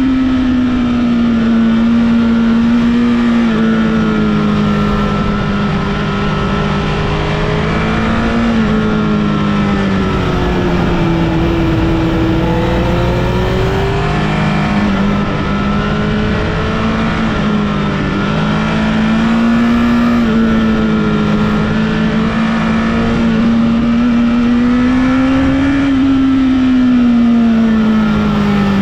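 Honda CBR1000RR (SC77) inline-four engine running under way, its note rising and falling as the throttle is worked through bends, with a steady rush of road and wind noise underneath.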